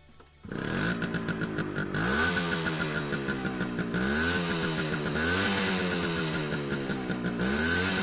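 Simson Sperber SR 4-3's M54 single-cylinder two-stroke engine kick-started. It catches about half a second in, then runs with the throttle blipped about four times, the revs rising and falling each time.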